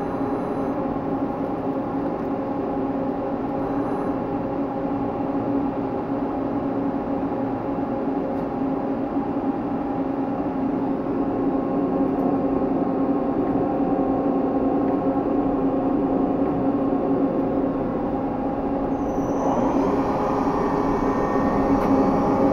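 Miyano JNC-35T CNC lathe running: a steady mechanical hum with several held tones. Near the end a brighter, hissier sound joins it.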